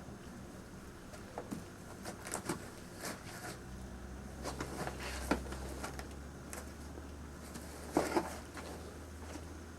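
A cat scratching and scuffing at its scratcher: irregular short scratchy sounds, with a louder double scrape about eight seconds in, over a low steady hum.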